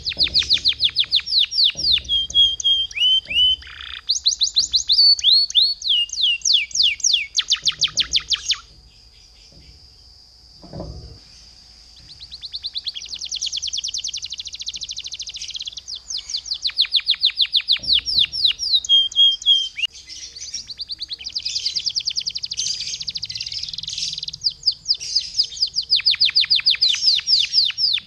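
Domestic canary singing: fast rolling trills of rapidly repeated high notes in long, vigorous phrases, with a break of a few seconds near the middle.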